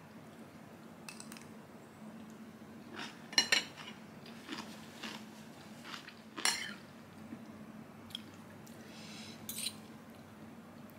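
Metal spoon and fork clinking and scraping against a ceramic plate of salad a few times, the sharpest clinks about three and a half and six and a half seconds in. A faint steady hum runs underneath.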